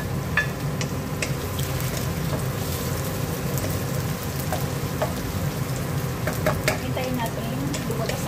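Sliced onion and leeks sizzling in oil in a nonstick wok, stirred with a wooden spatula, with scattered scrapes and taps; strips of chayote are tipped in near the end.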